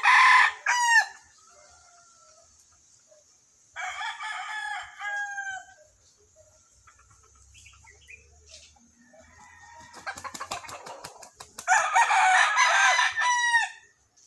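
Dwarf white rooster crowing: a loud crow right at the start, a fainter crow about four seconds in, and another loud crow about twelve seconds in. A quick run of sharp clicks comes just before the last crow.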